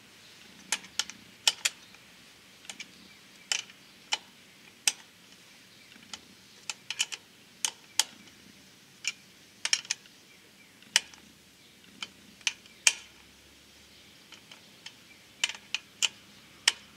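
Irregular sharp clicks and taps as the parts of a Honda Super Cub 110 Pro's headlight are handled during a halogen bulb change. Some come in quick pairs or short clusters.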